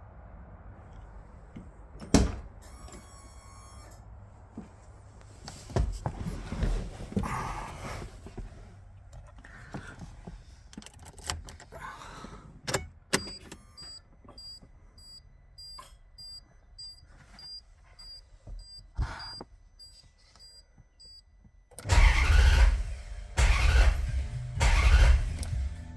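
A car with a starting problem: a click, a run of quick electronic warning beeps, then near the end three loud bursts of the engine being cranked, typical of hard starting.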